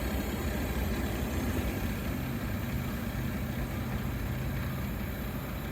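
A steady low engine hum, like a motor idling in the distance, with no change in pace.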